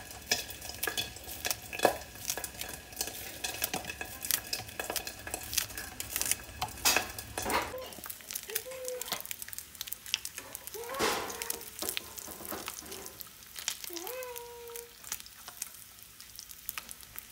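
Breakfast sizzling in a frying pan, with a utensil clinking and scraping against the pan as the food is stirred and turned. A low hum underneath stops about eight seconds in, and a few short pitched squeaks come in the second half.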